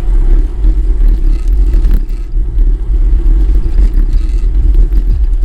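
Wind buffeting the microphone on a moving road bicycle: a loud, steady low rumble, with road noise underneath.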